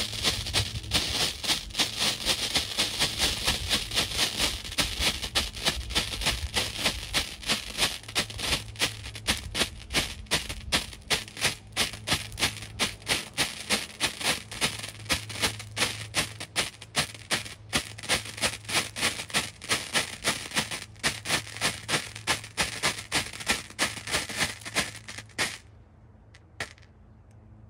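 Ground strobe firework burning: an even, rapid series of sharp pops, several a second, over a hissing burn, stopping suddenly near the end.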